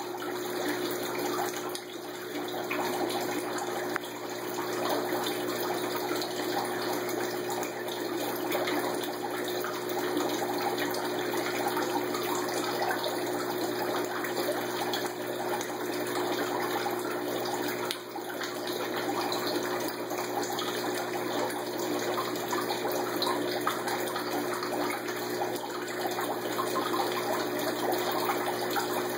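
Aquarium sponge filters driven by air, their airlift tubes bubbling and splashing water in a steady stream, over a steady low hum.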